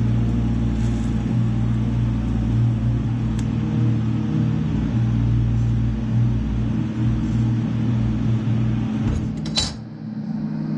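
Stick welder running with a steady low hum. About nine and a half seconds in there is a short sharp clank, and the hum fades.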